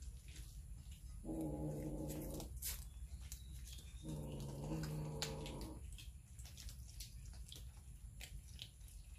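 A cat growling twice over raw fish, two long, low, steady growls a couple of seconds apart, with faint clicks between them.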